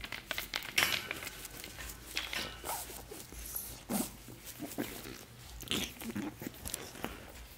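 Shih tzu puppy gnawing on a hard bone-shaped chew toy. Its teeth make irregular clicking and scraping sounds, with a few louder crunches.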